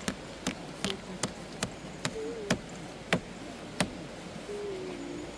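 A 5p coin being hammered into the wood of a tree stump: about eight sharp taps, two or three a second, that stop about four seconds in.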